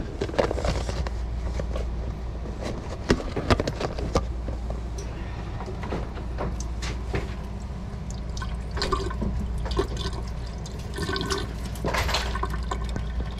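Lemon and lime juice draining from a tilted plastic food container past its held-ajar lid, pouring and splashing into a stainless-steel sink, with sharp clicks and knocks of the plastic lid and container.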